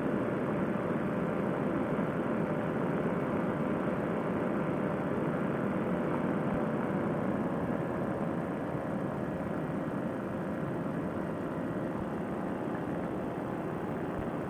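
Paramotor trike's Fresh Breeze Monster two-stroke engine and propeller running steadily in cruise, with rushing air, getting slightly quieter about eight seconds in.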